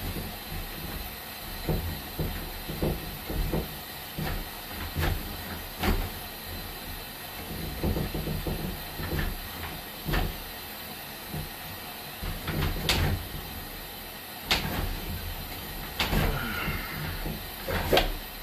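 Sewer inspection camera and its push cable being worked back and forth in a drain line: irregular knocks and clicks over a low rumble of handling.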